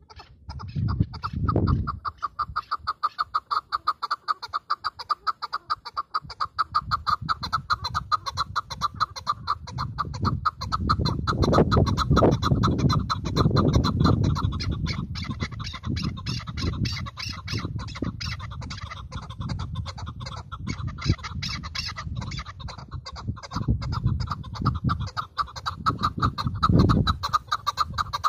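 Chukar partridge (chakor) calling from a hunter's decoy cage: an unbroken run of rapid, repeated chuck notes, several a second.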